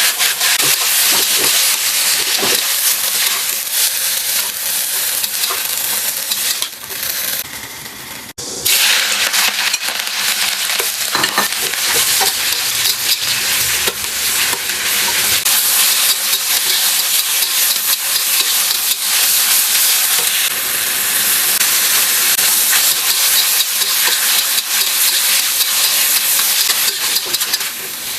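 Food frying in hot oil in a pan, a steady loud sizzle. It drops away about seven seconds in and comes back a moment later.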